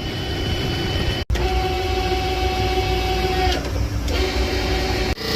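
A small electric motor running with a steady whine, broken off abruptly about a second in and again near the end.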